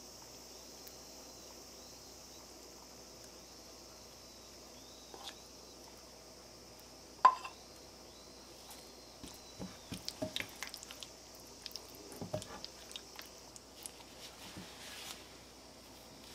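A sharp clink about seven seconds in. After it comes a run of small clicks and wet squishing as thick rice-flour batter is spooned over chicken pieces in a glass bowl and stirred through.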